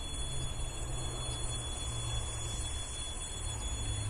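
Low, steady rumble of an RA2 and RA1 diesel railbus set approaching from a distance.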